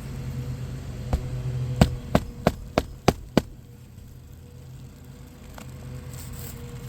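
A hammer driving a roofing nail into an asphalt shingle: one knock, then a quick run of six sharp strikes about a third of a second apart. A steady low hum runs underneath.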